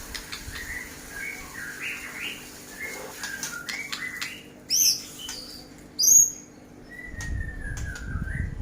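Small songbird calling: a run of short chirps, two sharp, loud high notes in the middle, and a long falling whistle near the end.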